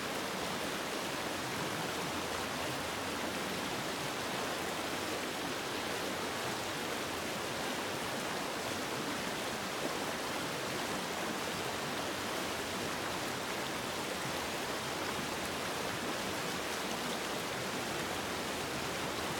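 Fast-flowing creek rushing over rocks and riffles: a steady, even rush of water.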